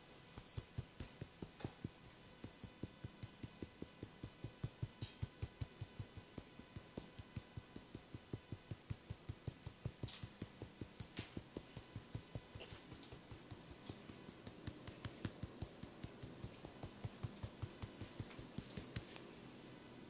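Rhythmic massage tapping on a person's body, a run of soft, even thumps at about four a second that stops shortly before the end, with an occasional faint click between.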